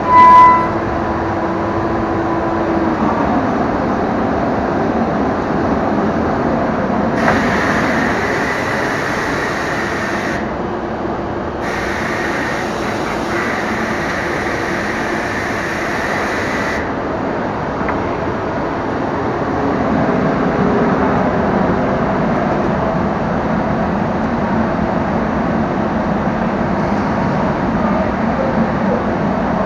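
Biesse Rover A 5-axis CNC router machining a wooden workpiece, running with a steady mechanical noise. A short loud tone sounds right at the start, and from about 7 to 17 s a brighter hiss joins in, broken briefly partway through.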